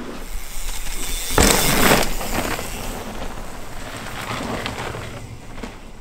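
Mountain bike riding down a dirt trail: tyres rolling and skidding over loose dirt, with a loud rush of noise about a second and a half in that fades toward the end.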